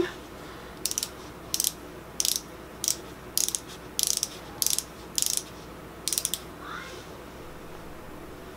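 Maybelline Instant Age Rewind concealer's twist barrel being turned, its ratchet clicking in about nine short runs, roughly two a second, to push concealer up into the sponge applicator; the clicking stops about six seconds in.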